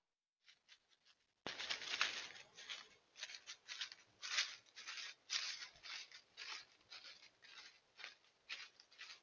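Coyote walking through dry fallen leaves: irregular crunching, rustling footsteps, about two a second, starting about a second and a half in.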